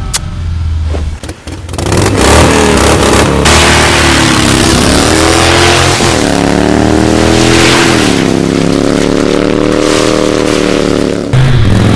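Motorcycle engine revving hard as the bike accelerates away. Its pitch climbs, then drops sharply twice at gear changes before holding a steady high run that cuts off suddenly near the end.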